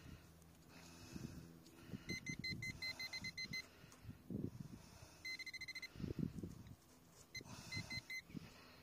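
A metal detector beeping on a buried target: a fast run of short beeps about two seconds in, one held beep midway, and a few more short beeps near the end. Between them a hand digging tool scrapes and chops into dry soil.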